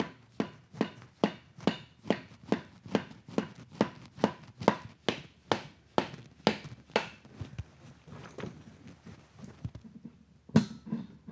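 Steady run of hammer taps on metal engine parts, about two and a half blows a second for some seven seconds. Then a few lighter knocks and one hard blow near the end.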